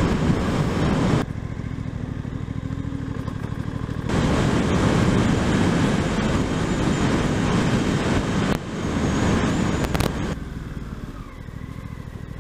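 Suzuki GSX-8S's 776cc 270° parallel-twin engine pulling along a road, with wind rush. The sound drops about a second in, swells again after about four seconds, dips briefly, then eases off toward the end.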